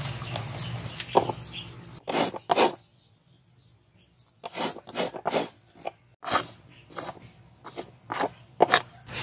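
Coconut flesh scraped against the serrated metal blade of a hand coconut grater in short rasping strokes. The strokes come about two a second, with a pause of about a second and a half near the start.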